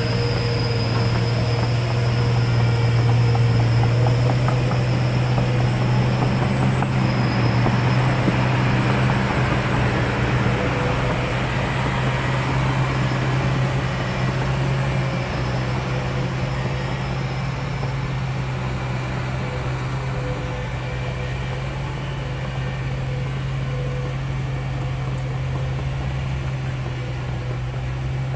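Heavy diesel engines of a loaded Hino 500 dump truck and a Kobelco hydraulic excavator running hard together, a steady low drone, as the truck struggles for grip in slippery red clay with the excavator pushing at its tail. The drone is strongest in the first several seconds and eases slightly after.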